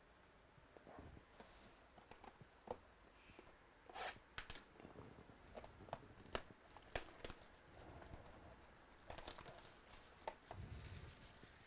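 Faint tearing and crinkling of trading-card pack wrappers being opened, with scattered light clicks and rustles of cards being handled.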